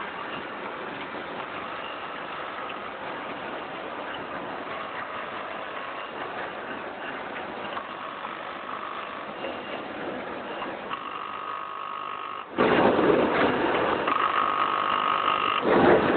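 Automatic vertical packing machine with an auger filler running: a steady mechanical hiss with a motor whine that comes and goes in short spells. About twelve and a half seconds in, the sound turns suddenly much louder and noisier.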